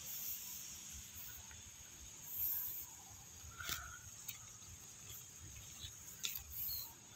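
A steady, high insect chorus, like crickets, with a few short high chirps and light clicks near the middle and toward the end.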